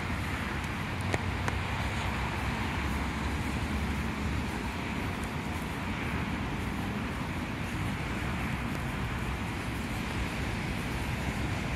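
Steady city traffic noise from wet streets, a continuous hiss with a low rumble under it. Two short faint clicks about a second in.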